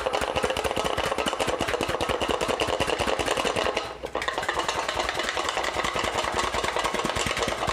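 Cooked chicken breast pieces knocking and rattling inside a closed aluminium pressure cooker that is shaken vigorously by hand to shred the meat. A fast, continuous clatter with a brief break about four seconds in.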